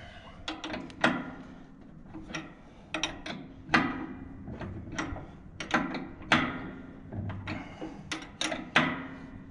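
Spanner clinking and clicking against the hydraulic pipe fittings of a power barrow's pump as the fittings are tightened: a dozen or so irregular sharp clicks and knocks, some with a short ring.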